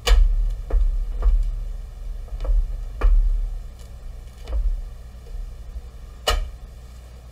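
Silicone rubber mould being handled and pulled apart on a metal sheet in a plastic tray: a series of uneven soft knocks and low thumps, with a sharper knock about six seconds in as a mould half is set down.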